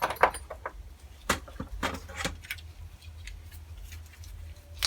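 Light clicks and clinks of small metal carburetor parts and tools being handled, several in the first half and one near the end, over a low steady hum.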